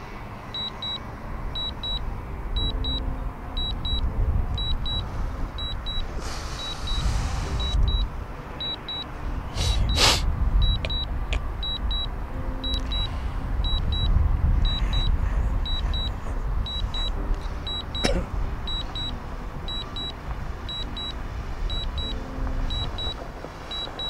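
Drone remote controller giving short high alert beeps in pairs, repeating about every second, over wind rumbling on the microphone. A brief hiss comes about six seconds in and a sharp knock about ten seconds in.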